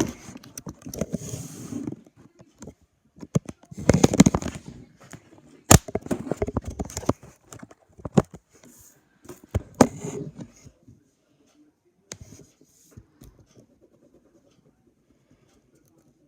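Close handling noise: a few sharp clicks and knocks with bursts of rustling and scraping between them, thinning out to faint scratchy ticks in the last few seconds.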